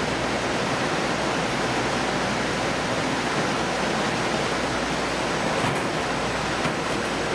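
Steady rushing noise, even and unbroken, with a few faint ticks near the end.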